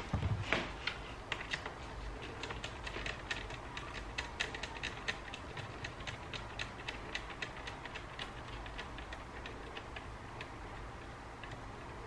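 Small screwdriver turning screws into a ThinkPad T430's chassis: a run of light clicks, several a second, thinning out toward the end. There is a duller knock just after the start.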